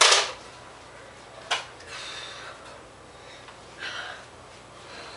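Handling noises of a Nerf foam-dart blaster being reloaded: a short burst of rustling at the start and a single sharp click about a second and a half in. A short breathy gasp follows near four seconds in.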